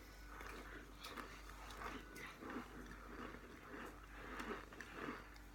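A person biting and chewing chunks of cornstarch, with repeated irregular crunches about two a second.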